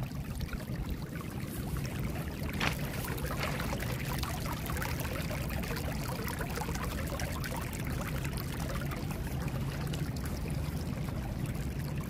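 Storm water welling up steadily out of two buried drain outlets into a river-rock-lined pool, the saturated leach line running as a discharge line.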